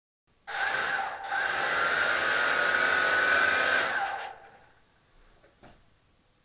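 Quanum Nova quadcopter's motors and propellers spinning up to a steady whirring whine. After about three and a half seconds they wind down and stop, and a faint tick follows.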